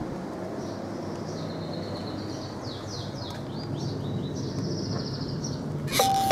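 Small birds chirping and trilling over steady background noise. Near the end a doorbell button is pressed and the bell sounds with a sudden, sustained ringing tone.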